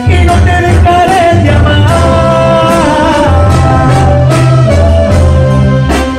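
Live Mexican banda music: a trumpet and trombone section plays a held, stepping melody over a steady bass line and a regular drum beat.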